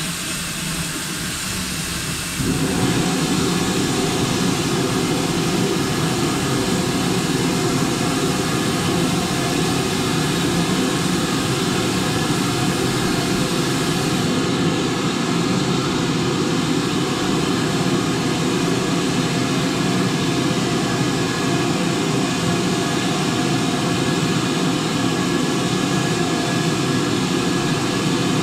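BR Standard Class 5 steam locomotive 73156 heard from its front end: a steady rushing roar with no clear beat, which jumps suddenly louder about two and a half seconds in and then holds.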